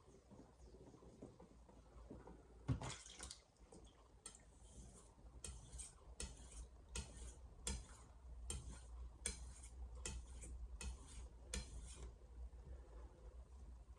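A single knock, then a steel knife blade scraping in quick strokes across a Shapton Glass whetstone, about two to three strokes a second.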